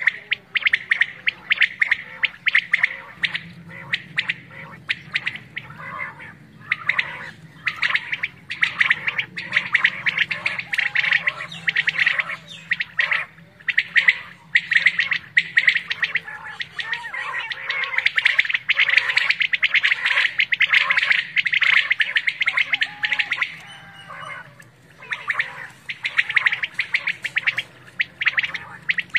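Many caged decoy quail calling at once, a dense chorus of quick, sharp repeated calls used to lure wild quail, with a short lull late on.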